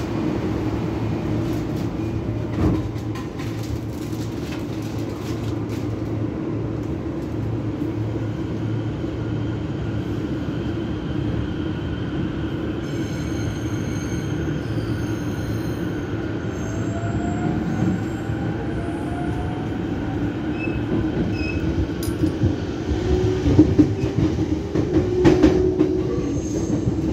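Inside a JR E231-500 series electric commuter train pulling away from a station and picking up speed. A steady motor hum runs throughout, with a faint whine rising in pitch partway through as the train accelerates. Near the end the wheels clatter over rail joints and points, and the sound gets louder.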